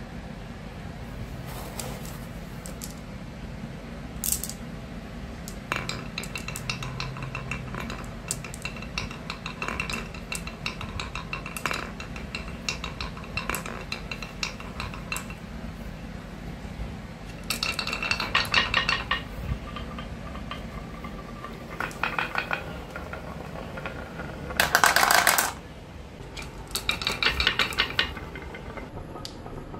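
Glass marbles rolling down a carved wooden marble run, clicking and rattling against the wooden grooves and against each other. The clicks come in bursts, the loudest a dense rattle about 25 seconds in.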